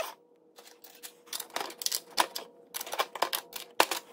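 Small metal parts clicking and clinking irregularly as hands work the nuts and bracket on a brake booster's mounting studs. The clicks come thicker and quicker near the end.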